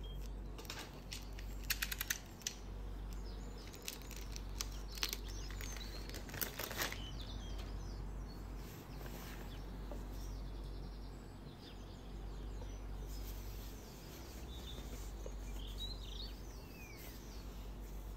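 Gloved hands handling a shrink-wrapped cardboard perfume box, giving light crackles and taps in the first seven seconds. Birds chirp in the background near the end, over a steady low hum.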